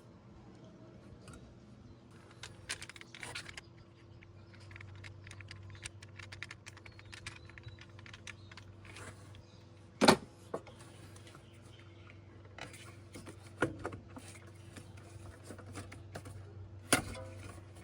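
Hand tools and small metal parts clicking and clinking in irregular runs, with a louder knock about ten seconds in and a few more later, over a steady low hum.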